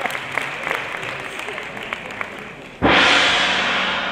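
Audience applause dying away, then about three seconds in a sudden loud burst of music from the stage that rings on and slowly fades.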